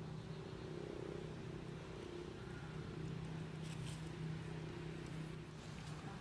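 A steady low engine hum in the background, with a brief rustle about four seconds in.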